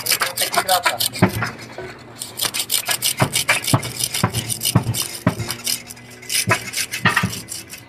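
Wetted knife blade sawing through the rubber of a truck tyre, quick rasping strokes one after another with a few short squeaks of blade on rubber. The blade is kept wet so it slides through the rubber.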